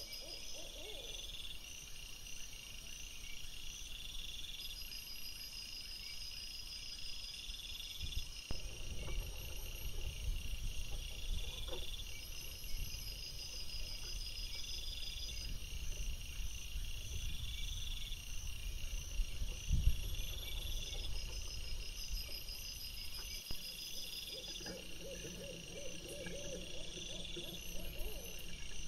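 Night insects chirping in a steady repeating pattern, a burst about every two seconds. A low rumble swells through the middle and fades again, loudest about twenty seconds in.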